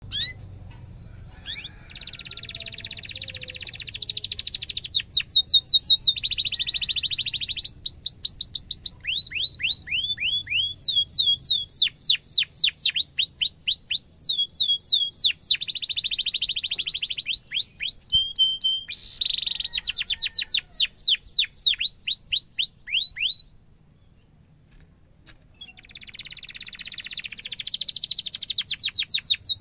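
Domestic canary singing a long, continuous song: fast rolling trills alternating with runs of quick downward-sweeping whistled chirps. It breaks off for about two seconds late on, then the trills start again.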